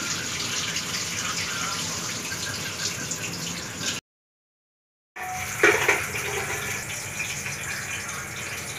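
Rinse water pouring steadily from an aluminium pot of washed rice into a stainless steel sink. It breaks off after about four seconds, and after a second of silence comes a lower steady hiss with one sharp knock.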